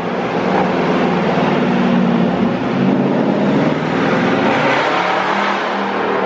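Dodge Charger Scat Pack's 392 Hemi V8 running under way, heard from inside the car as it drives through a road tunnel; the engine note rises, dips a couple of seconds in, then climbs again near the end.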